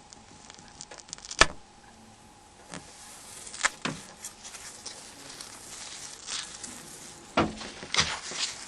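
Small sharp clicks and light scratching of metal hand tools working on a mobile phone's small parts while its flex cable is peeled up, with one louder click about one and a half seconds in.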